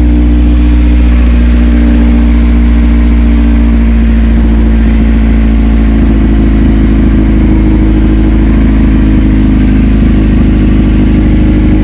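1990 Acura Integra's four-cylinder engine idling steadily, with a really loud exhaust.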